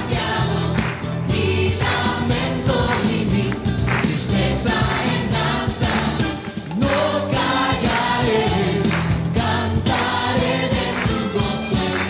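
Live Christian worship song: a large mixed choir singing over a full band with a steady beat.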